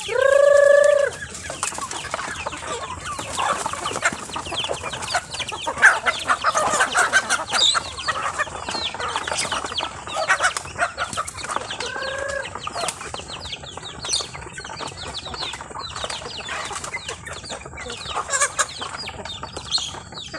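A flock of village chickens clucking and pecking at feed in a wooden trough, with wings flapping now and then. A loud drawn-out call about a second long opens the scene, and a shorter one comes about twelve seconds in.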